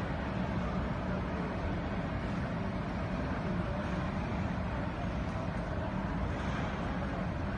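Steady low hum and rumble of a large ship's machinery and ventilation, with an even hiss over it.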